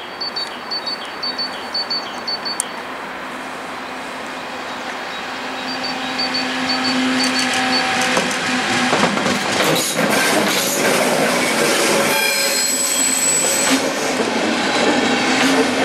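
Electric locomotive (Siemens Vectron) passing with a train of passenger coaches. A steady hum swells as it approaches, then wheels knock over the rail joints as the coaches roll by, with a brief high wheel squeal about three quarters of the way through.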